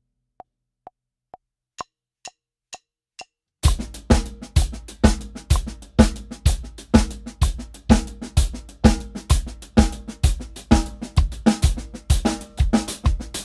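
Eight metronome clicks at 128 BPM counting in two bars, with the first beat of each bar accented. About three and a half seconds in, a drum kit comes in on the same tempo, playing a groove on bass drum, snare and cymbals.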